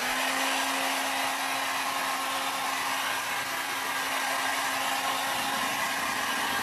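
Handheld heat gun comes on and runs steadily: a rushing hiss of blown air with a faint low hum underneath. It is heating freshly poured epoxy on a tumbler to get it moving.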